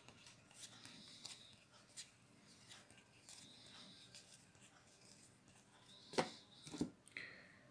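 Faint handling of a stack of trading cards: soft clicks and slides as cards are moved one by one from the front of the stack to the back, with two louder clicks a little after six seconds in.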